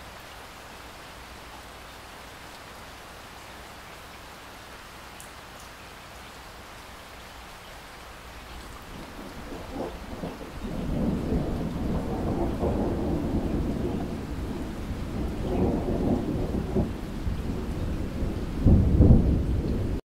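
Heavy rain splashing into standing water on a flat surface, a steady hiss. About halfway through, a long low roll of thunder comes in and swells, and it is loudest just before the end.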